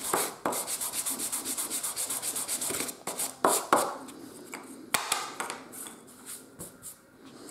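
Sanding sponge rubbed briskly back and forth over a small laser-cut wooden part, about five scratchy strokes a second, sanding off stray graphite pencil marks. The strokes stop about three seconds in, followed by a few light knocks and a hand brushing across the tabletop.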